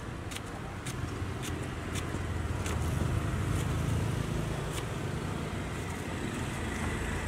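Knife slicing green fruit and tapping the cutting board, sharp ticks about twice a second, over a steady rumble of passing traffic that swells in the middle.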